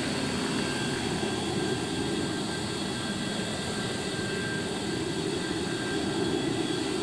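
Boeing 737-200's Pratt & Whitney JT8D turbofan engines running steadily, a constant jet noise with a thin high whine held at one pitch.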